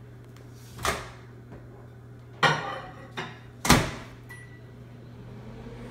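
Household clatter: four sharp knocks and bangs of the sort made by cupboards, doors or dishes, the loudest about three and a half seconds in, over a steady low hum.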